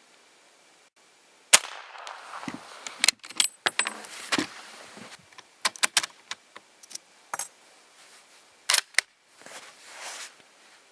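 A run of sharp metallic clicks and clacks at an uneven pace, the loudest about a second and a half in, with a short high ringing ping about three and a half seconds in.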